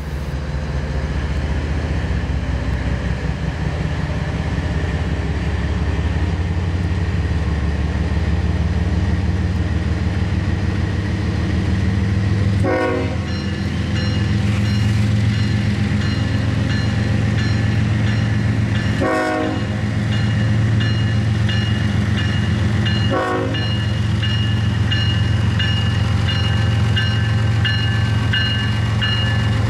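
Norfolk Southern freight train's diesel locomotives running steadily as the train approaches and its lead units roll past. The engine drone is loud and constant and grows fuller about halfway through.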